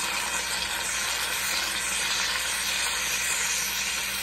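Aerosol can of whipped cream hissing steadily as it sprays cream onto a cup of Jell-O; the can is running out.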